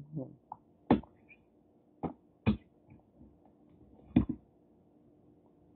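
Eating sounds while picking through a seafood boil: a handful of short sharp clicks and smacks a second or so apart, the loudest about a second in and near four seconds in. A faint steady hum runs underneath.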